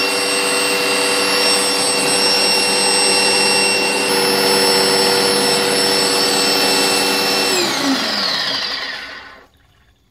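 Wagner Airless Sprayer Plus electric pump motor running with a steady, pretty noisy whine while pumping water. About three-quarters of the way through it is switched off and runs on briefly, its pitch falling as it winds down and stops.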